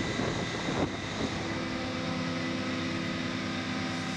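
Aircraft turbine engine noise: a steady rush with a high whine, joined about a second in by a steady lower hum of several tones.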